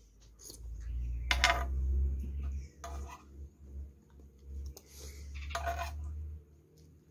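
Cutlery clinking and scraping against a plate several times, the loudest clink about one and a half seconds in, over a low rumble.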